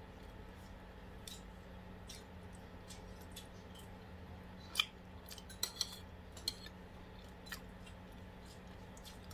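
Light clicks of cutlery against a dish during a meal: about five sharp, short clicks close together between the fifth and eighth seconds, over a steady low hum.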